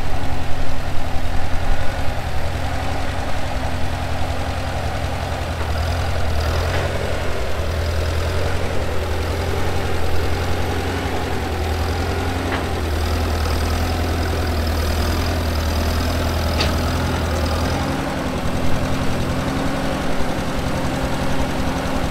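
An engine idling steadily with a fine regular low pulse; its deepest hum drops away about eighteen seconds in.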